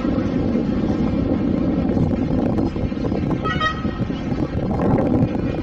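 Steady rumble of car engines, with one short car horn toot about three and a half seconds in.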